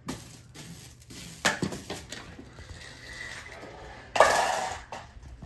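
Hard objects being handled: a few sharp knocks and rattles, then a louder scraping clatter about four seconds in.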